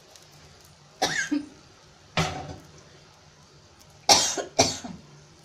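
A person coughing four times: single coughs about a second and two seconds in, then two loud coughs close together near the end.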